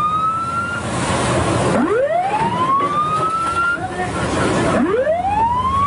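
Alarm siren aboard a coast guard patrol boat, sounding in repeated rising wails: each climbs for about two seconds and then breaks off, and a new one starts about every three seconds. A steady rush of wind and sea runs beneath it.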